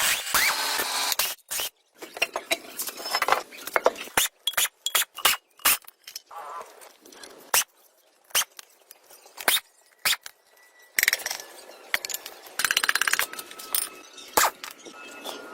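Metal tools and parts being handled: repeated sharp clicks, clinks and knocks with stretches of scraping, and a quick run of rapid clicks about two-thirds of the way in.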